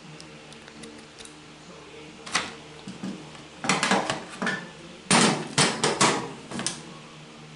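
Metal lock parts and a screwdriver being handled and set down on a hard tabletop: a single knock a little over two seconds in, then two runs of sharp clattering knocks in the second half.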